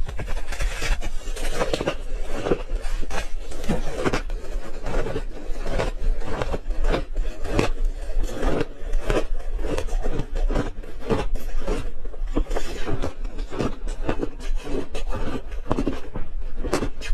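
Ice being crunched and chewed in the mouth, close to the microphone: a steady run of crisp cracks and crunches, several a second.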